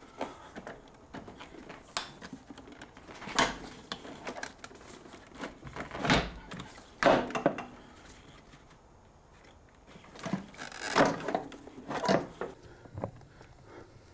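Irregular knocks, scrapes and clatters of a car brake booster and the parts around it being handled and pushed into position against the firewall. A handful of sharper clunks stand out, with a lull in the middle.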